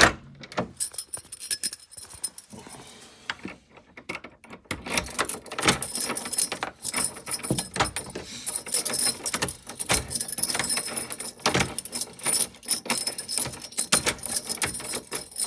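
A bunch of keys jangling, with irregular clicks and rattles as a door lock and handle are worked from the inside to test them.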